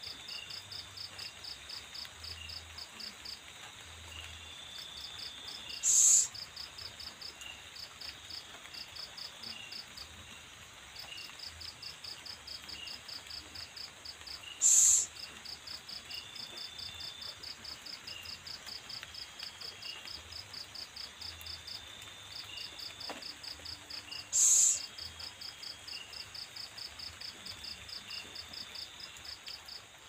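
Night insects, crickets or katydids, chirping in long trains of rapid high pulses, about four or five a second, with fainter steady high trills. Three loud, short, hissing bursts about nine seconds apart stand out above them.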